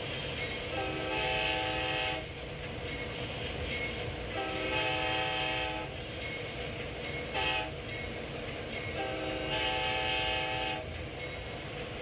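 Amtrak locomotive air horn sounding two long blasts, one short and one long, the standard warning signal for a grade crossing, over the steady rumble of the moving train.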